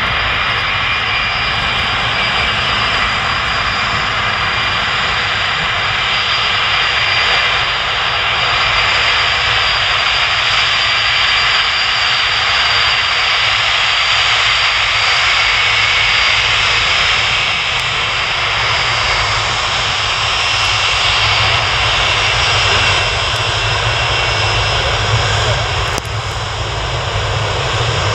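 Boeing 747-200 freighter's four Rolls-Royce RB211-524D turbofans running as the jet taxis past: a steady, loud jet noise with high whining tones over a low rumble. It swells a little in the middle and eases briefly near the end.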